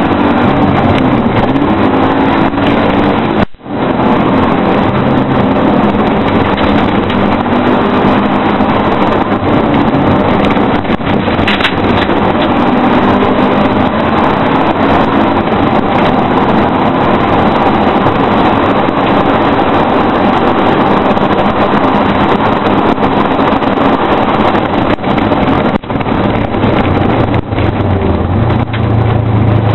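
Car engine driven hard in a hillclimb run, heard from inside the cabin with wind and road noise, running loud and continuous. The sound cuts out for a split second about three and a half seconds in, and near the end the engine settles into a steady low drone.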